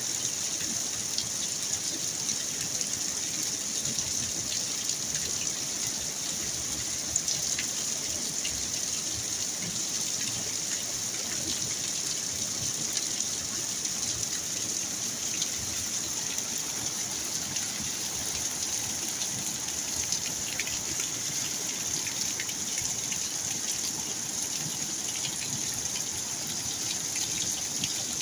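Storm rain falling steadily: a constant hiss with many small drop ticks, and water gushing.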